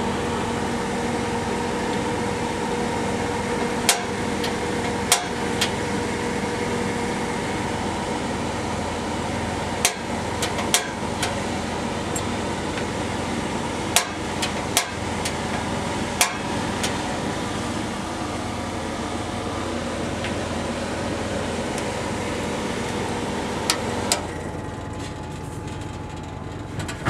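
Motorhome range hood fan running with a steady hum, and sharp single clicks every few seconds as the gas stove's burners are lit. The hum drops away about three seconds before the end.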